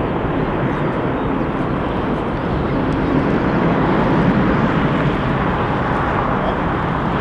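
Airbus A330-900neo's Rolls-Royce Trent 7000 turbofans running at climb power as the airliner pulls away: steady jet engine noise, swelling slightly about halfway through.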